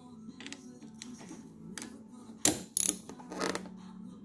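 Small metallic clicks and scrapes of a screwdriver working the screws on an ATV's handlebar brake master cylinder, with a couple of sharper clicks about two and a half seconds in. A steady low hum runs underneath.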